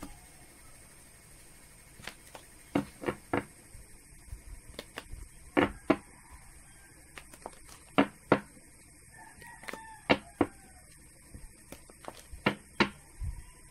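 Deck of tarot cards shuffled by hand: a run of sharp card clicks and snaps, often two in quick succession, at irregular intervals of a second or two.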